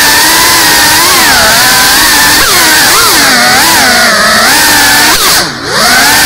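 GEPRC Cinelog 35 cinewhoop FPV drone's brushless motors and ducted propellers whining, the pitch rising and falling as the throttle changes. About five seconds in the throttle drops briefly: the whine sinks and quiets, then climbs back.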